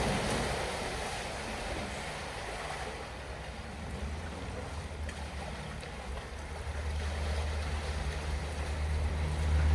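Rushing floodwater with a vehicle engine's low hum, which builds from about halfway through and grows louder toward the end as the vehicle draws near.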